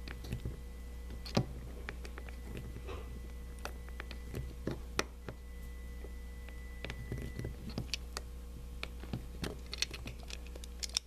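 Irregular small plastic clicks and taps from fingers handling a Trackmaster Royal Spencer toy train's tender while fitting its battery, coming faster near the end, over a steady low hum.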